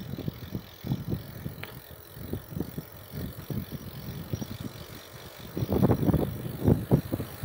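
Wind rumbling on the microphone of a moving bicycle, in irregular gusts that grow louder over the last two seconds.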